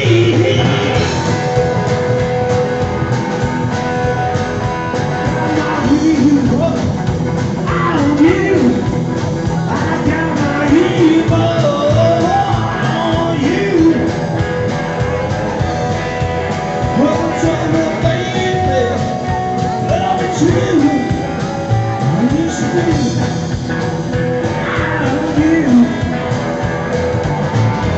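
Live rockabilly band playing loudly: upright double bass, drum kit and electric guitar.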